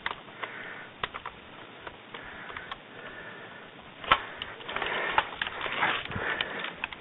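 Close-up sniffing and breathing picked up by a mask-mounted camera, with scattered clicks and rustling of movement. There is a sharp click about four seconds in, and the rustling grows louder in the second half.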